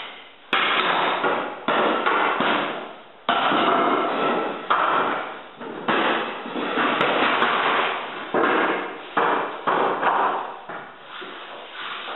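Loose hardwood flooring boards being laid out and knocked into place on the subfloor, a string of sharp wooden knocks and clatters at irregular intervals, each ringing on briefly in the bare room.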